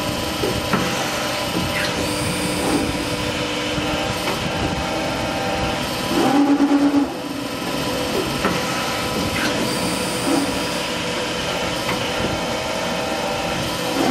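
CNC servo press brake running, its servo-driven back gauge moving along the X and R axes: a steady mechanical running noise. A louder pulsing tone lasting about a second comes about six seconds in and again at the end.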